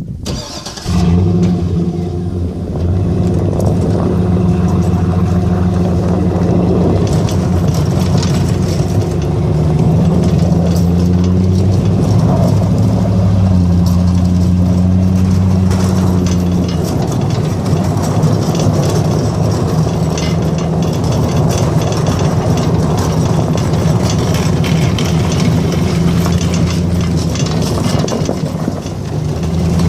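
Snow-plow vehicle's engine running steadily, coming in suddenly about a second in, its engine speed rising and falling.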